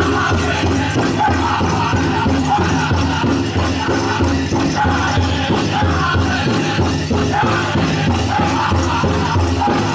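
Powwow drum group singing a chicken dance song, high wavering voices over a big drum beaten in a steady pulse, with the dancers' bells jingling along.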